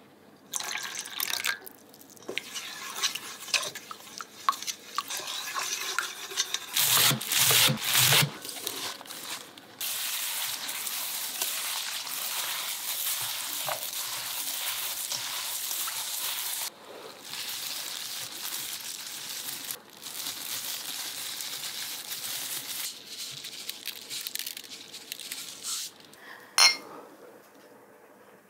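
Wooden spoon stirring chili-flake seasoning in a stainless steel bowl, with a few louder knocks about seven seconds in; then hands tossing and rubbing cut garlic chives in the seasoning, a steady wet rustle, and a sharp click near the end.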